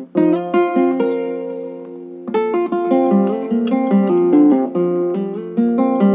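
Background music: a guitar picking plucked notes one after another, with no speech.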